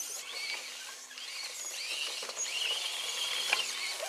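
Electric drive motor and gears of an RC scale crawler truck whining as it crawls over dry leaves, with a steady high whine held for about a second past the middle, against a light crackle of leaves.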